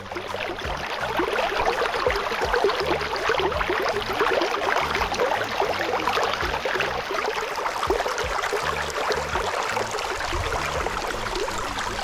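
Shallow stream babbling and splashing over rocks, close to the microphone: a steady, dense rush of water full of small splashes.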